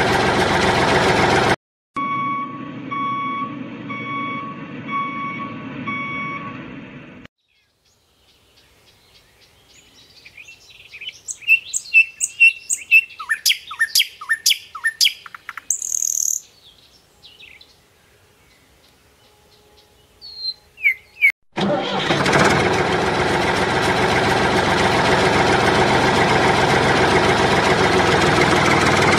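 Dubbed-in sound effects for a toy tractor: a tractor engine running steadily, broken by a stretch of evenly spaced beeps about twice a second, then a quick flurry of bird chirps, after which the engine sound comes back and runs steadily.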